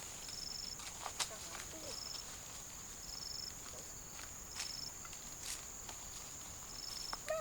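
Insects in a steady high-pitched drone, with a short chirp repeating about once a second, and a few scattered sharp knocks.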